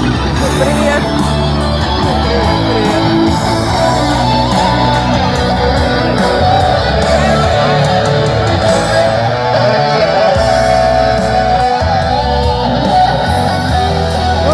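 A live street band playing rock music led by an amplified electric guitar, with a steady low bass underneath.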